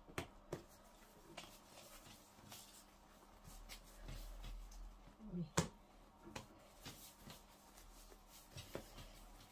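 Quiet kitchen room with a few scattered light clicks and taps from dough and utensils being handled on the counter, the sharpest about five and a half seconds in.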